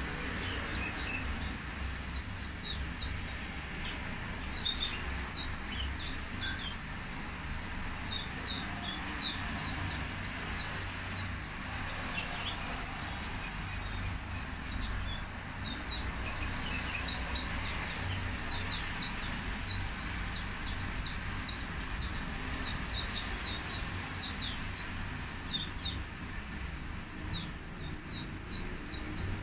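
Caged white-eye singing: a long, rapid twittering song of short, high, falling notes that runs on almost without pause, over a low steady background hum.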